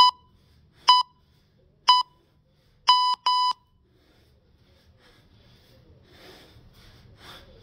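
Electronic workout timer beeping a countdown: three short beeps about a second apart, then two longer beeps in quick succession. After that, short hard exhalations from the lifter working through kettlebell snatches.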